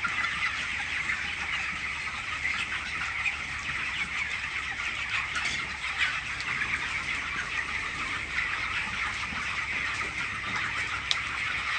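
A large flock of chickens in a poultry shed clucking and cheeping all at once: a steady, unbroken chatter of many birds.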